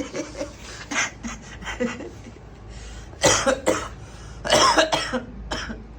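A person coughing in two bouts, about three seconds in and again a second later. These coughs are the loudest sounds here.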